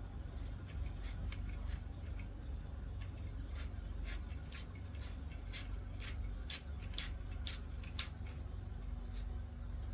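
Light, sharp plastic clicks and ticks from stick-vacuum parts being handled and fitted together, coming irregularly and growing louder and closer together past the middle, over a steady low hum.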